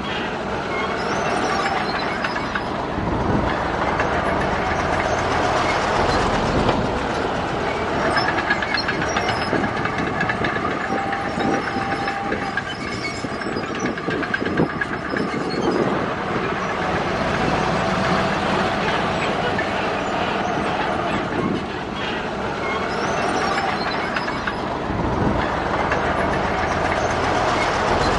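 Bulldozer working: its diesel engine running steadily under load amid the clatter of its steel crawler tracks, with whining tones that rise and fade every few seconds.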